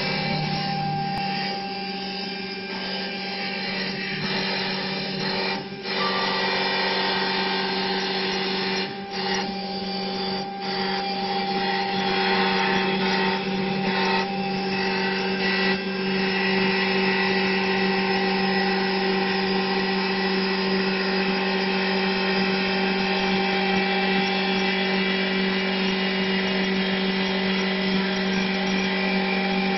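Single-spindle, single-cutter CNC wood lathe running. Its motor hums steadily under the scraping of the cutter turning a wooden blank, with several short, sharp sounds in the first half.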